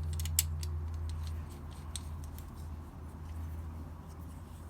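Tools being handled on a workbench: a few sharp metallic clicks in the first half second, then fainter scattered clicks, over a steady low hum.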